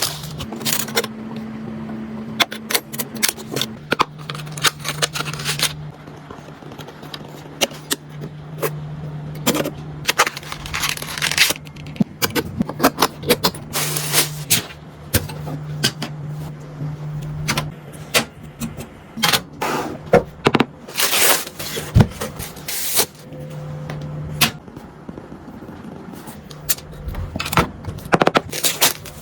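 Computer parts being handled and fitted together during a PC build: many small clicks, knocks and scrapes of plastic and metal, over a low steady hum that starts and stops several times.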